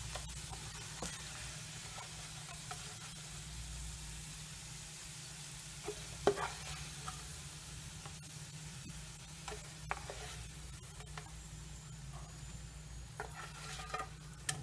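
Potato wedges sizzling in shallow oil in a frying pan, with a few sharp clacks of a spatula against the pan as pieces are turned and lifted out; the loudest clack comes about six seconds in.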